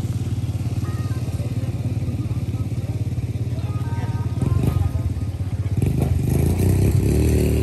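ATV (quad bike) engines running, a steady low drone that grows louder near the end.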